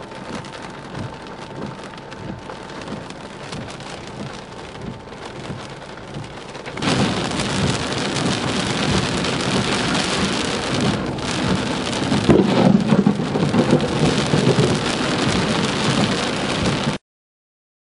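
Heavy rain pelting a car in a thunderstorm, a steady hiss that suddenly gets much louder about seven seconds in. The sound cuts off abruptly near the end.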